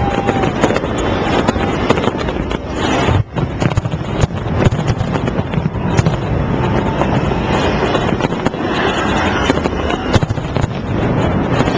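Fireworks going off in a dense barrage, many cracks and bangs over a continuous rumbling din, with a brief whistle at the start and another about seven seconds in.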